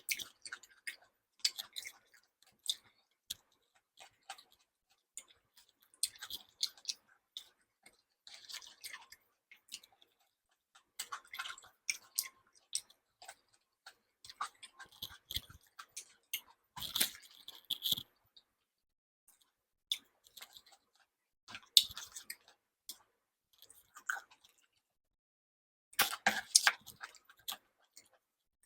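Close-miked chewing and wet mouth sounds of someone eating, coming in irregular bunches of short clicks and smacks with brief silent pauses between, the densest bunches about two-thirds of the way through and near the end.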